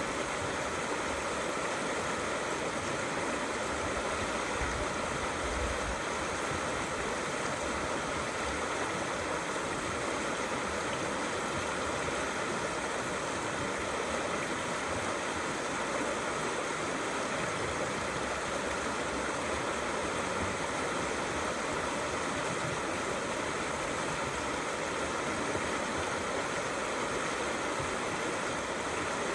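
Small river flowing steadily over stones under a bridge, a constant rushing and gurgling of water.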